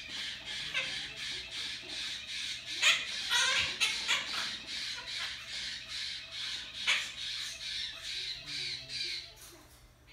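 Blue quaker parrot (monk parakeet) squawking in a rapid, even string of harsh calls, several a second, with two louder calls about 3 and 7 seconds in, trailing off just before the end.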